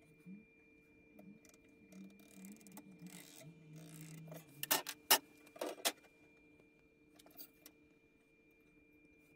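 Hand tools being handled on a wooden workbench: three sharp clicks and knocks, like a steel rule being picked up and set down, about five to six seconds in, with a few fainter ticks later.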